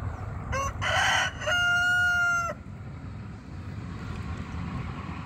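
A rooster crowing once: the call begins about half a second in with a rising opening and ends on a long held note about two seconds later.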